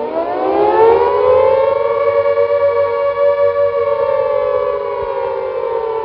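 Air-raid siren winding up in pitch over the first second or so, then holding a steady wailing tone.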